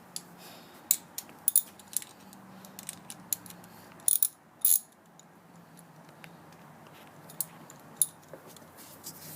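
Scattered sharp metallic clicks and clinks of hand tools and bolts being worked in a tight spot while a car's starter motor is fitted, at an irregular pace.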